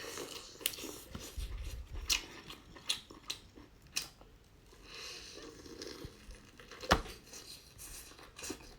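Close-up eating of a crispy fried chicken cutlet: sharp crunches and crackly chewing, with a louder crunch near the end.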